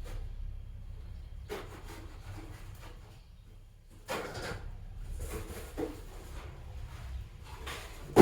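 Scattered clatters and rubbing of objects being handled and moved around, with a loud knock right at the end.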